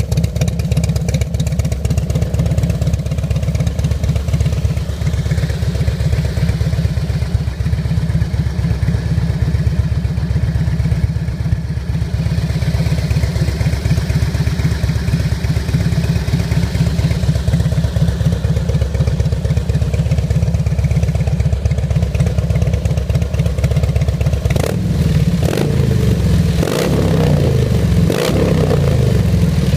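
Harley-Davidson Street Glide's V-twin idling loudly and steadily through Bassani Boom Cans exhaust. About three-quarters of the way through, the throttle is blipped a few times and the pitch swings up and back down.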